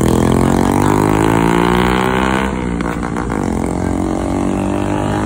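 Motor vehicle engine running and revving, its pitch climbing slowly, then changing abruptly about halfway through and running on steadier.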